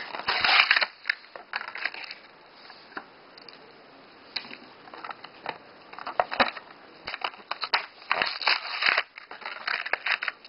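Hot Wheels blister pack being ripped open by hand: the clear plastic bubble crackling and crunching as it is pulled from the card, in irregular bursts. Loudest right at the start and again about eight to nine seconds in, with a quieter lull around two to four seconds.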